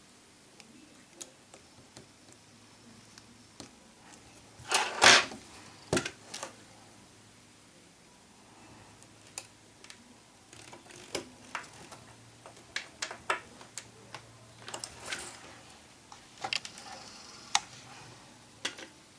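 Scattered small clicks and taps of a small screwdriver and tiny screws being handled and driven into an iPhone 4, with a louder clatter of knocks about five seconds in and a run of quick clicks in the second half.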